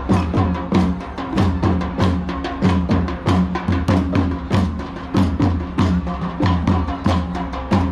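Drum-led folk dance music: a fast, steady rhythm of deep booming drum strokes mixed with sharp, clicking high beats.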